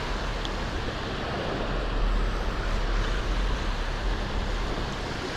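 Surf washing onto the beach as a steady rushing noise, with wind rumbling on the microphone.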